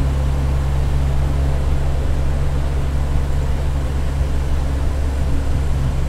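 Convair 580's twin Allison 501 turboprop engines and propellers at takeoff power, a loud steady low drone heard from the cockpit during the takeoff roll.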